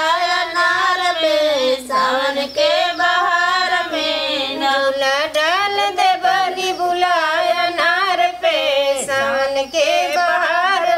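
Women singing a Bhojpuri kajari folk song unaccompanied, one continuous ornamented melodic line with wavering, sliding pitch.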